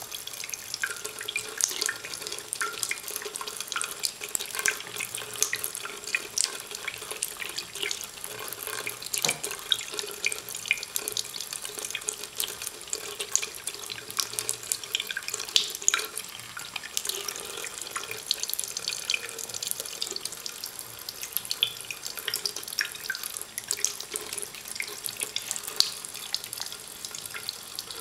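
A thin stream of tap water runs steadily into a white sink basin, broken by frequent irregular small splashes and clicks as a cat laps at the falling stream.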